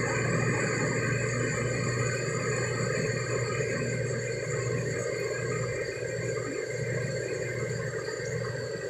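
A steady low hum with several constant high whining tones over it, unchanging throughout.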